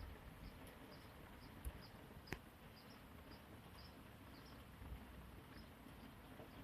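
Faint, high, short chirps repeating about two to three times a second over a near-silent background, with one sharp click a little over two seconds in.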